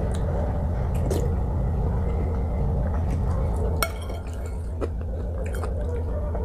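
Eating at a table: a few light clinks of utensils against a bowl, the sharpest, with a short ring, about four seconds in, over a steady low hum.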